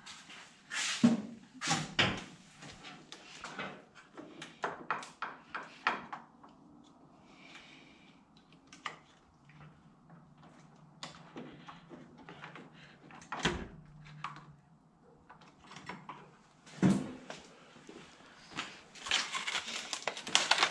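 Scattered knocks, clicks and a few thumps of hands-on handling work as a plug adapter and light cord are fitted overhead. Near the end, a quick run of crinkling from the plastic packaging of a pack of light bulbs being handled.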